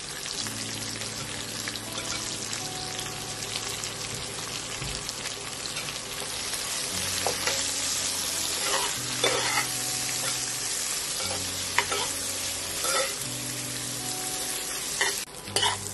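Sliced onion sizzling as it fries in hot oil with tempered spices, stirred with a metal spoon that scrapes and knocks against the pot a few times in the second half.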